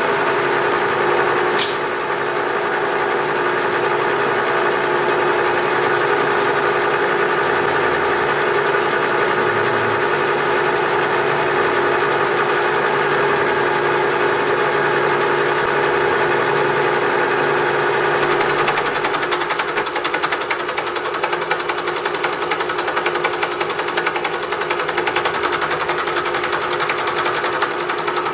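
Bridgeport vertical milling machine running, its cutter milling the base of a feed nut held in a machine vise: a steady machine hum with a single click about two seconds in. The sound turns rougher and more fluttering about two-thirds of the way through.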